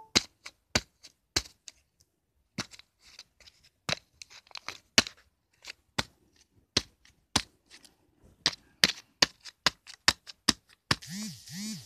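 A pen jabbed again and again into a paper disc: a string of irregular sharp clicks and taps, a few a second, with a short pause about two seconds in.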